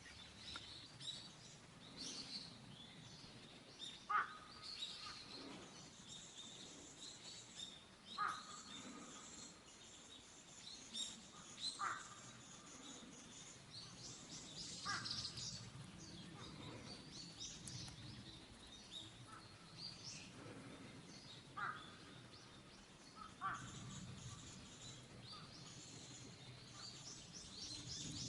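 Faint outdoor ambience with birds chirping and a short harsh call about every four seconds.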